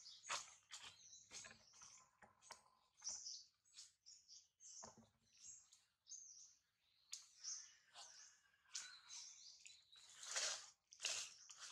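Faint, rapid high-pitched chirping calls, several a second, with a stronger and longer call about ten seconds in.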